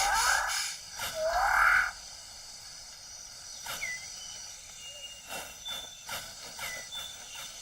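Two loud, harsh animal calls about a second apart, each with a rising sweep. After them come quieter tropical rainforest sounds: short whistled notes and scattered clicks.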